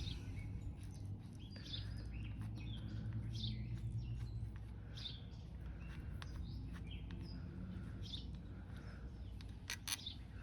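Small birds chirping in short calls about once a second over a steady low rumble, with two sharp clicks near the end.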